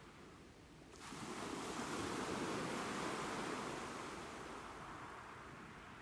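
Ocean waves on a shore: a short lull, then about a second in a wave surges in and washes up, swelling and slowly fading away.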